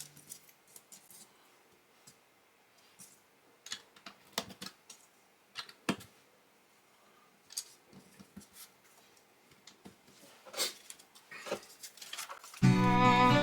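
Small plastic Lego pieces clicking and tapping as they are handled and pressed together, in scattered irregular clicks. Music comes in near the end.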